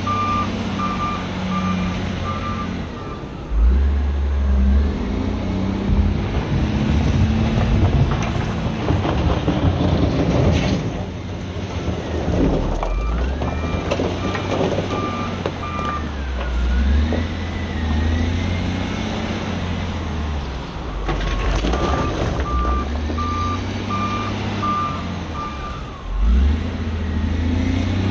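Cat 966G wheel loader's diesel engine running and revving as it works, with its reversing alarm beeping about twice a second in spells while it backs up. A few knocks and rattles come around the middle.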